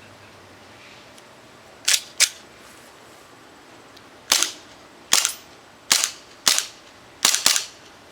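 Tokyo Marui Glock 18C gas blowback airsoft pistol firing about eight shots, each a sharp crack of gas and the cycling slide, fired singly and in quick pairs at uneven spacing.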